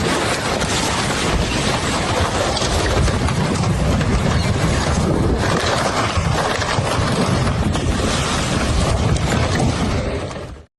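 Rushing floodwater: a loud, steady rush of noise that cuts off suddenly near the end.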